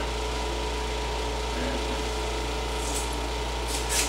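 Window air conditioner running with a steady hum and a couple of steady tones, with two brief scratchy sounds near the end.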